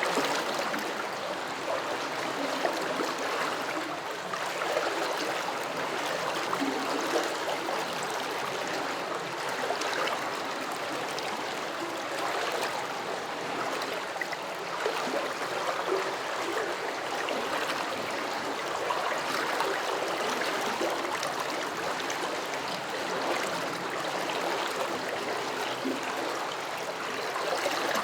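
A small stream flowing over stones, rippling and gurgling steadily with many small splashes.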